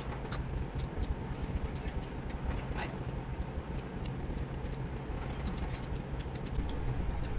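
Shrimp shells being peeled by hand, with small scattered clicks and crackles and the sound of chewing. Under it runs a steady low hum.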